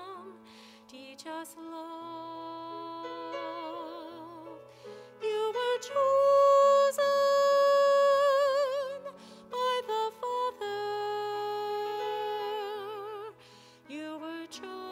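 A female cantor sings with vibrato over grand piano accompaniment. She holds a long, loud note in the middle.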